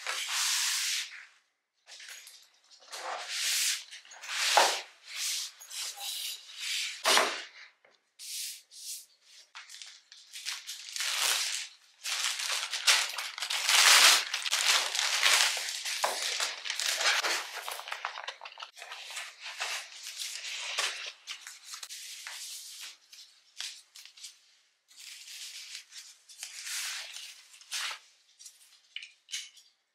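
Plastic poly mailer bag and packaging crinkling and rustling in irregular bursts as items are handled and pulled out, loudest in the middle stretch.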